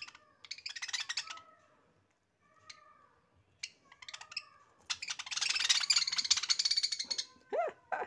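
Pet budgerigars chattering: short whistled chirps and warbles mixed with scratchy, buzzing bursts, the longest and loudest from about five to seven seconds in.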